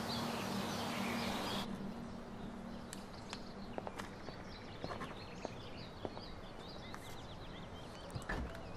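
Quiet daytime ambience with birds chirping. The background drops suddenly about two seconds in, leaving faint birdsong and scattered light clicks.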